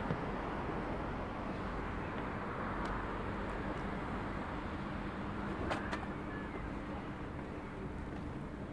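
Steady outdoor city ambience: a low, even hum of distant road traffic, with a few faint clicks.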